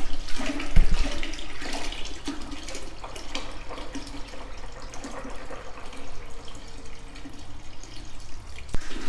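Waste from a portable toilet tank pouring out into a toilet bowl, a steady splashing run of liquid, with a thump about a second in as the tank is handled.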